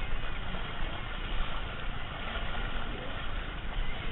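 Steady rumbling, rustling noise on a body-worn camera as its wearer crawls through a mud pit.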